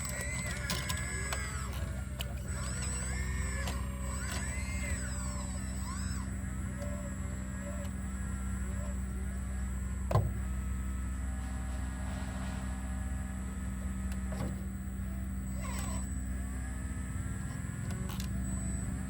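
Sumitomo SH120A3 excavator's diesel engine running steadily while the hydraulics work, with whining tones that rise and fall in the first half and a single clunk about ten seconds in.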